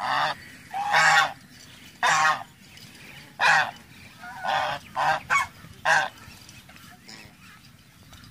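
Domestic geese honking, about eight loud, short honks at irregular intervals, then stopping about six seconds in.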